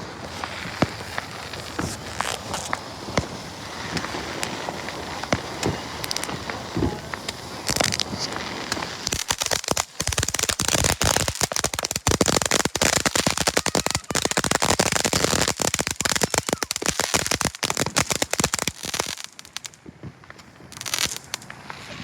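Consumer fireworks going off: scattered sharp pops at first, then about ten seconds of dense, rapid crackling that stops suddenly, followed by a couple more pops.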